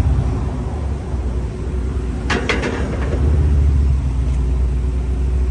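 Heavy truck's diesel engine running with a steady low rumble, growing louder about three seconds in. A brief cluster of sharp knocks comes a little past halfway.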